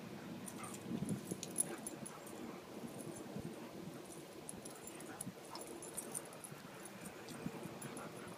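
Dogs making low whimpering noises throughout, with many light, high clicks and jingles mixed in.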